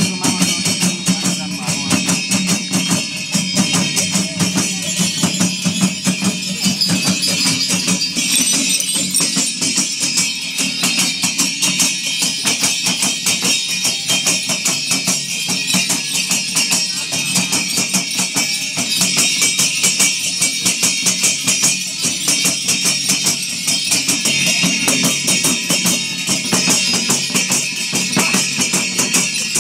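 Shamanic ritual percussion: a drum beaten in a fast, steady rhythm with a dense metallic jingling of bells over it, driving a dhami-jhakri shaman's dance.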